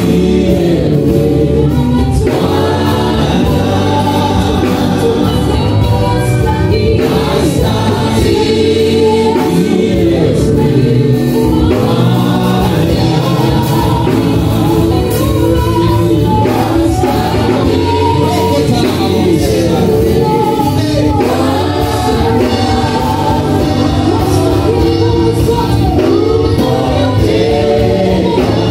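Gospel worship song sung by the worship team as a choir, with the congregation singing along.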